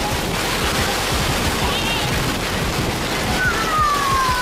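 Storm-force wind of about 140 km/h driving heavy rain: a loud, steady rush of wind and rain. Near the end a single high tone slides downward over it.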